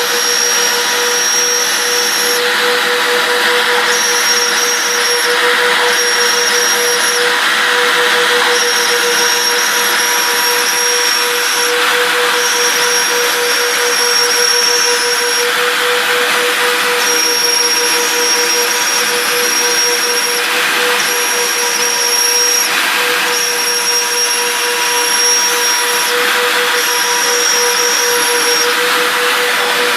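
Twin 30,000 rpm router spindles on a CNC machine milling through two stacked sheets of 3 mm poplar plywood with a 1.5 mm cutter. The spindles give a steady whine over a rushing cutting noise, and a higher whine cuts in and out every few seconds.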